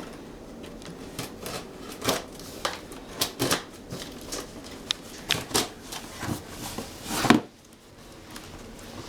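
A cardboard box being handled: irregular rustling, tapping and scraping, with one louder, longer scrape about seven seconds in.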